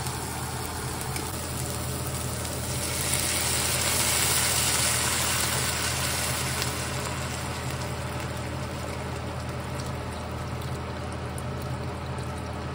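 Chicken broth poured in a steady stream into a hot frying pan of browned meat and peppers, splashing and sizzling; the sizzle swells about three seconds in and then settles. A steady low hum runs beneath it.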